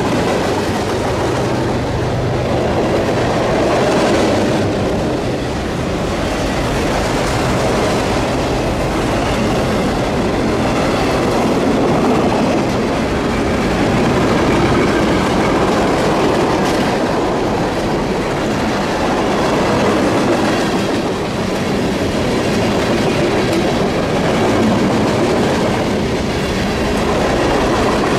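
Freight cars of a long CSX mixed freight train rolling past: a steady rumble and clatter of steel wheels on the rails, swelling and easing every few seconds as the cars go by.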